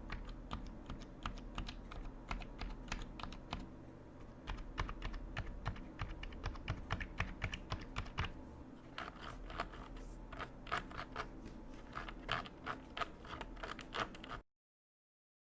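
Typing on a Redragon K550 Yama mechanical keyboard: a quick, uneven run of key clicks that stops abruptly near the end into silence.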